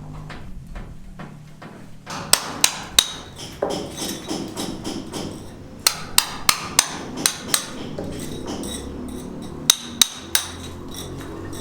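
Hammer blows in quick groups: three strikes, then about six at roughly three a second, then three more near the end.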